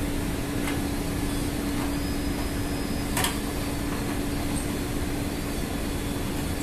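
Steady drone of ship's machinery with a constant low hum, and a faint click about three seconds in.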